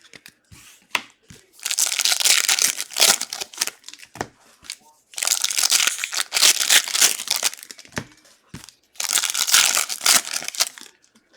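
Plastic trading card pack wrappers crinkling as they are handled and torn open, in three loud bursts of a couple of seconds each.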